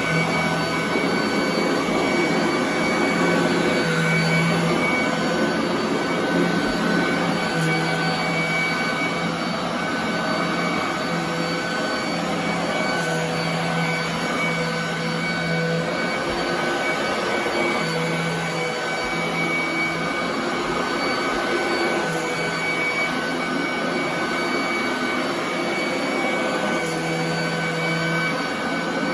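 Royal commercial vacuum cleaner running on carpet: a steady motor whine, with a lower hum that comes and goes every couple of seconds.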